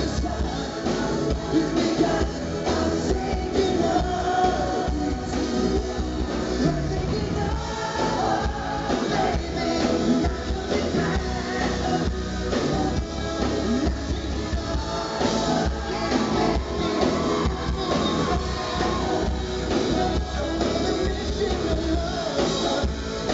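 Live pop-rock band playing, with a male lead singer.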